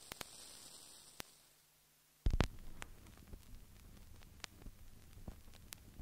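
Background noise of a live stage recording: hiss and a low hum with a few clicks, then one loud thump about two seconds in, followed by hum and scattered small knocks and clicks from the room.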